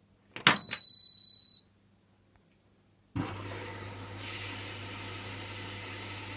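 Hoover washing machine starting its cycle: a click and one long high beep, then about three seconds in the water inlet valve opens and water starts filling, a steady hiss with a low hum.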